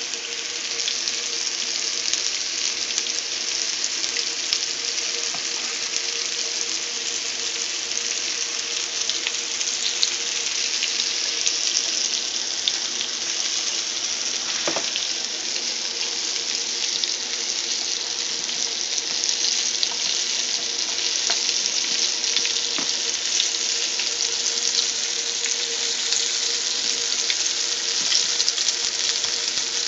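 Flour-dredged squirrel pieces frying in shallow hot oil in a pan: a steady sizzling hiss dotted with small crackles and pops.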